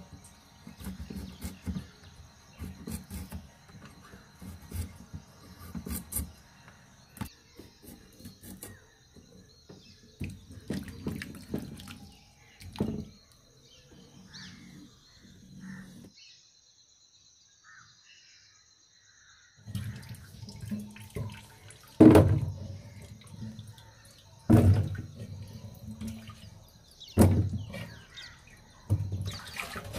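A knife shaving the peel off green ambarella (golden apple) fruit in rhythmic scraping strokes. After a short quiet stretch, water sloshes and splashes in a stainless steel sink, with several heavy knocks of a clay pot against the sink.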